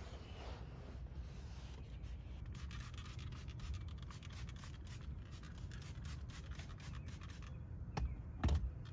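A microfiber towel rubbing a plastic dashboard, then a trigger spray bottle pumped over and over in quick short squirts, misting cleaner onto the center console. Two louder knocks near the end.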